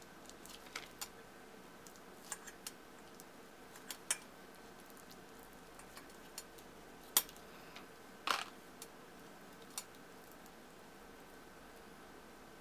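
Clear slime packed with foam beads being squeezed and stretched by hand, giving scattered small clicks and pops, the two loudest about seven and eight seconds in.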